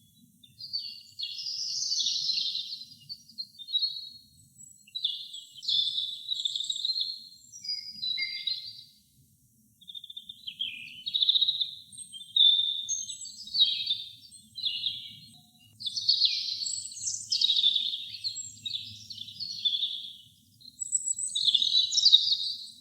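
Robin singing: a string of high, warbling song phrases, each a second or two long, separated by short pauses, with a longer pause about nine seconds in.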